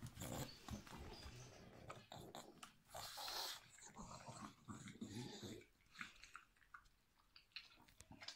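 A pug's faint breathing and small movement noises, with a few soft clicks.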